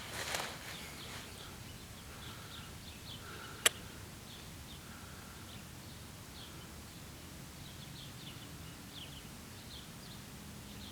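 A single sharp shot from a .177 Gamo Hunter coil-spring break-barrel air rifle a few seconds in. Small birds chirp faintly throughout.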